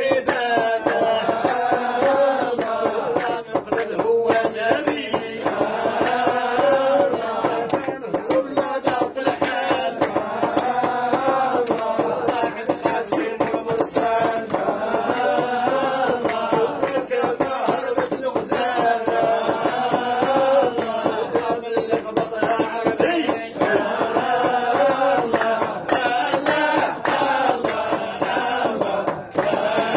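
A group of men chanting dhikr, devotional praise songs (madih) for the Prophet Muhammad, with long, wavering melodic lines sung together without pause.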